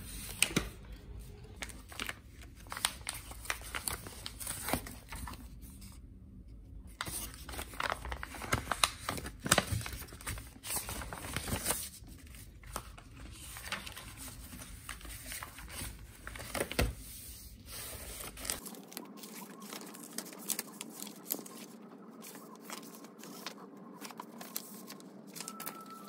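Paper rustling and crinkling in short crackly bursts as an envelope is handled and opened and sheets of paper are pulled out and leafed through. Past the middle the low background rumble drops out, leaving a faint steady hum under the rustles.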